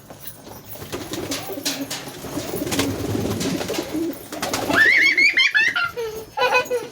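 Pigeons cooing, a low wavering coo for a few seconds, followed by a louder high-pitched rising and falling call near the end.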